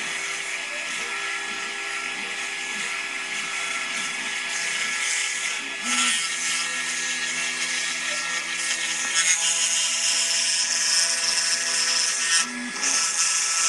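Small high-speed spindle motor of a mini CNC engraving machine running with a steady whine of several tones, its bit cutting wood with a hiss. The sound shifts briefly about six seconds in, then grows harsher and brighter about nine seconds in.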